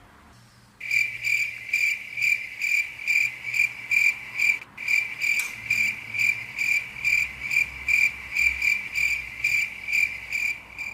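Cricket chirping as the comic 'awkward silence' sound effect: a steady high chirp repeating about three times a second. It starts suddenly about a second in and breaks off briefly near the middle.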